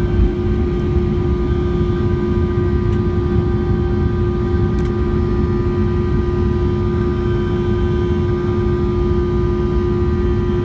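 Boeing 757-200's Rolls-Royce RB211 turbofans at takeoff thrust, heard inside the cabin over the wing during liftoff and initial climb: a steady loud rumble with a strong hum and several high steady whining tones from the engine fan.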